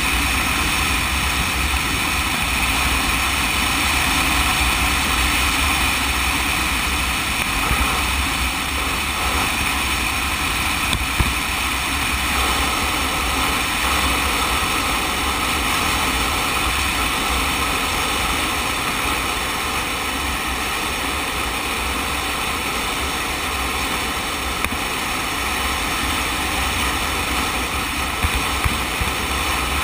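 Sport motorcycle riding at a steady cruising speed: the engine runs evenly under a constant rush of wind and road noise on the bike-mounted camera, with a low rumble throughout. A few faint clicks come through, one about a third of the way in and a couple near the end.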